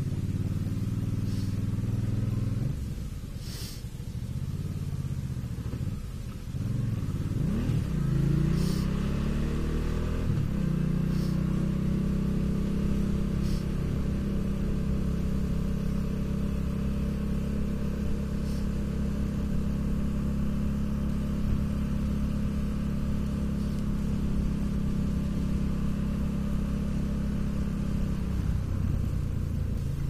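Motorcycle engine heard from on board while riding. It eases off a few seconds in, rises in pitch as it accelerates about eight seconds in, then runs steadily at cruising speed and drops back near the end.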